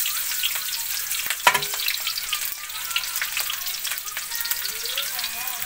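Chopped garlic and green chillies sizzling in hot oil in a kadhai, a steady crackling hiss as the tempering fries. One sharp knock comes about a second and a half in.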